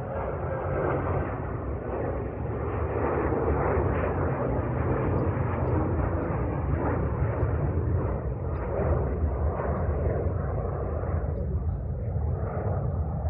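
Jet aircraft engine noise: a broad rumble that swells about two seconds in and then stays loud and steady.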